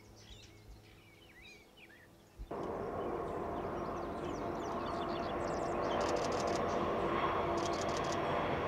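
Birds chirping over a quiet background. About two and a half seconds in, a steady rumble of an approaching diesel train starts abruptly: UP 1996's EMD SD70ACe locomotive working toward the bridge. It grows slowly louder while birds keep chirping above it.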